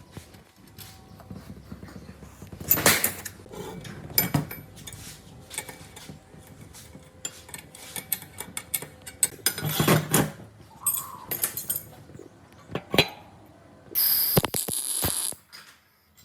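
Intermittent knocks and metallic clinks, as of metal parts being handled and set down, with a short burst of hissing noise about fourteen seconds in.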